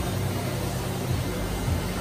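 Steady low hum under an even hiss: the background noise of a fish store's rows of aquarium tanks, with their pumps and filtration running.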